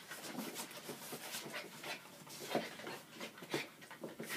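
Norwich terrier puppies panting in quick, irregular breaths while they play, with a sharper, louder sound a little past halfway and another near the end.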